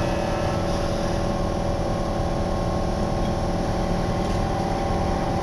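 Inside a linear-motor subway car of the Nagahori Tsurumi-ryokuchi Line: the steady hum of the train with several steady tones over a low rumble, as the train pulls out of the station.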